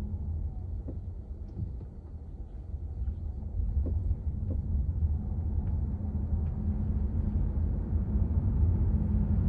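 Low rumble inside a Honda ZR-V's cabin, with a few faint short clicks scattered through it: the abnormal noise the owner hears in the car. The rumble dips about two seconds in and then slowly grows louder.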